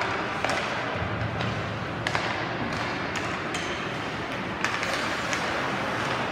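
Ice hockey in play in an arena: a handful of sharp clacks of sticks on the puck and the puck off the boards, over a steady hum of skates on ice and the arena.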